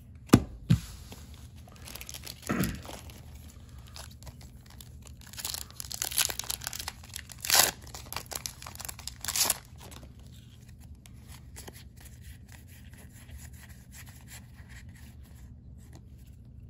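Pokémon 151 booster pack's foil wrapper being torn open and crinkled, in several loud bursts in the middle. Before that, a few sharp taps as cards are set down; near the end, faint soft clicks as cards are leafed through.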